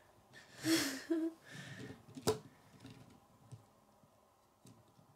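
Plastic K'nex toy truck handled on a wooden tabletop, pressed down on its suspension and moved about: a low rumble and one sharp plastic click about two seconds in, then a few faint ticks. A brief voiced sound about a second in.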